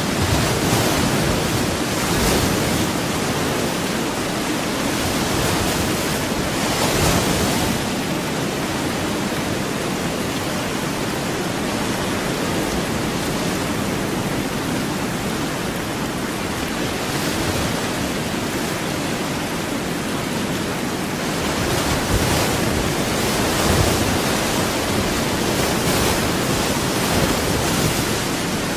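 Steady rushing noise spread evenly from low to high pitch, like a wash of surf or falling water, swelling a little every few seconds.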